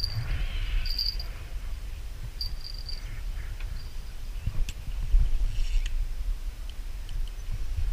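Low, uneven wind rumble on the microphone, with a few short high-pitched insect chirps near the start and a couple of faint clicks later.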